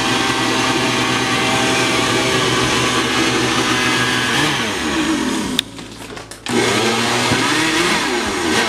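Countertop blender motor running, blending a thick milkshake mixture, with its pitch wavering. It cuts out briefly about six seconds in, then runs again.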